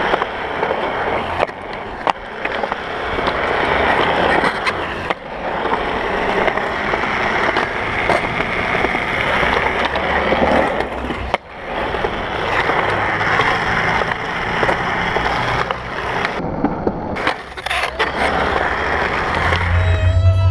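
Skateboard wheels rolling on concrete ramps and banks, a continuous rough rumble, with a few sharp clacks of the board hitting the ground.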